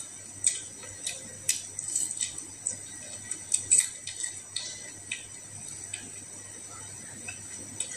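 Close eating sounds of a person eating fried fish and rice by hand: a string of short wet mouth clicks and chewing smacks, loudest a little before the middle.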